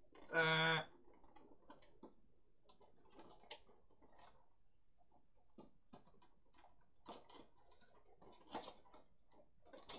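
Clear plastic parts of a Beyblade Burst Battle Tower stadium being handled and snapped together: scattered light plastic clicks and knocks. A short hummed voice sound about half a second in is the loudest thing.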